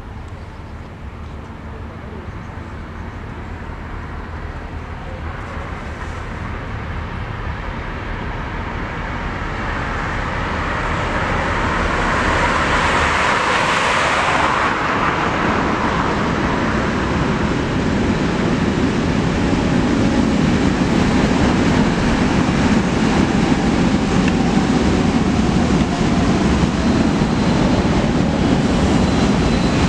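Škoda 27Tr articulated trolleybus running on overhead-wire power, approaching from a distance and passing close, growing steadily louder. Its tyre and road noise is joined by a low drive hum, with a rush of hiss about halfway through and a faint high whine near the end as it draws level.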